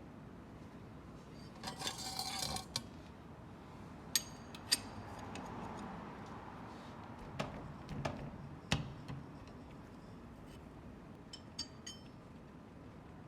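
Small metal objects, such as tools and parts, clinking and clicking as they are handled and set down, with a short rattle about two seconds in and a few sharp, ringing clinks after it. No engine is running.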